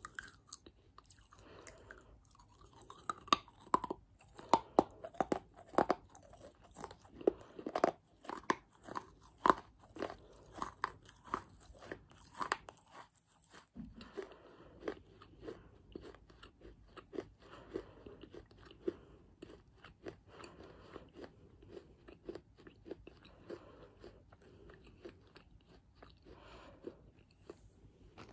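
Close-miked crunching and chewing of baked clay pot pieces. Sharp, loud crunches come over the first half. After a brief break about halfway through, the chewing goes on softer and quicker.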